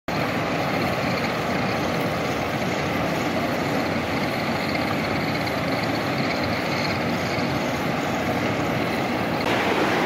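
Steady, dense mechanical rumble of factory machinery: large drum-type ball mills used for grinding ceramic material. It grows a little louder near the end.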